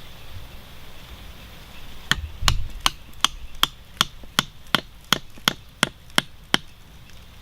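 A steady run of about a dozen sharp knocks, roughly three a second, starting about two seconds in: a tool chopping or striking, likely on wood or bamboo while the trap is being made.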